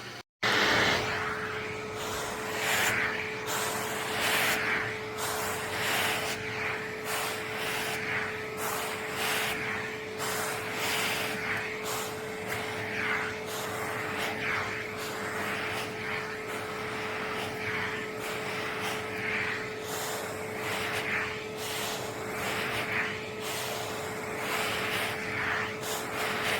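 Oneisall LM2 pet grooming vacuum running with a steady motor hum, its suction rushing in uneven surges about once a second.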